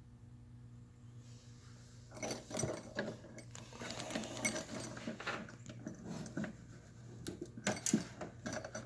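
Metal keys jangling and clicking in irregular bursts, starting about two seconds in, over a steady low hum.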